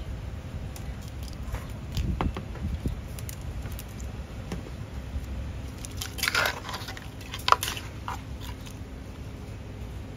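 Food-preparation handling noise: irregular clicks, crunches and squishes of food and utensils being worked, over a steady low background rumble. A denser cluster comes about six seconds in, and a sharp click follows about a second later.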